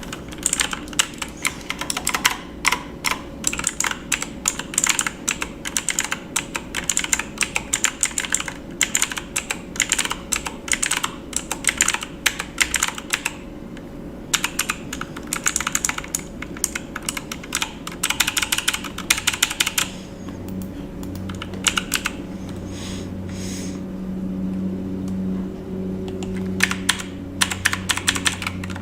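Typing on a computer keyboard: fast runs of keystroke clicks with a brief pause about halfway through. After about twenty seconds the typing thins to short bursts and a low hum comes up beneath it.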